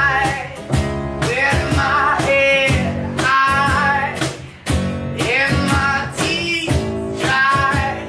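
Background music: a song with a singing voice over a steady beat.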